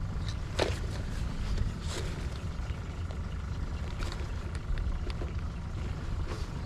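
Boat motor running steadily: a low rumble with a faint whine over it, and a few light knocks.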